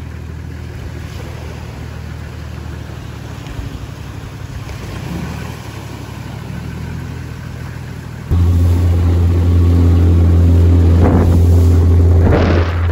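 A Land Cruiser Troop Carrier's engine running at low revs as it backs a boat trailer into the shallows, with small waves washing on the sand. About eight seconds in it gives way abruptly to the much louder, steady drone of a small outboard motor pushing an aluminium dinghy across open water.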